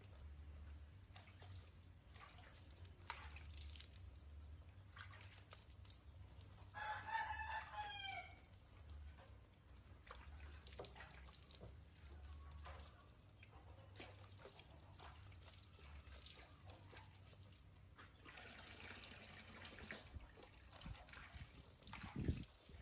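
A rooster crowing once, about seven seconds in, one pitched call that falls away at its end. Around it is near silence with faint scattered drips and clicks over a low hum, and a short low thump near the end.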